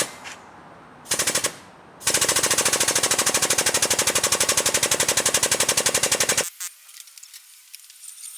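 Power impact tool hammering in rapid bursts: a short burst about a second in, then a long one of about four seconds that stops suddenly.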